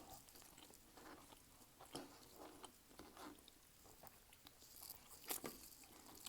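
Near silence with faint chewing and small mouth sounds of eating, broken by a few soft clicks, one sharper near the end.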